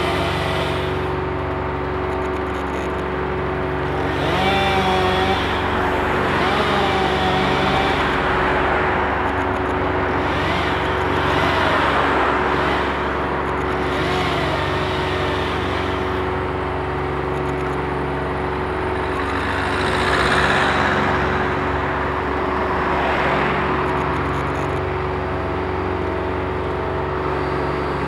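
An engine running steadily, swelling louder several times.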